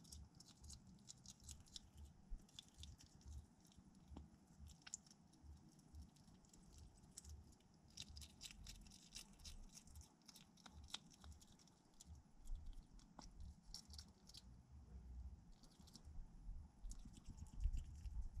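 A hedgehog crunching and chewing food, a quick irregular run of small sharp crunches. A few louder low thumps come near the end.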